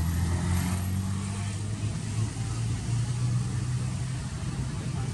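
A steady low mechanical drone, like an engine running at idle, that rises a little in pitch about two seconds in.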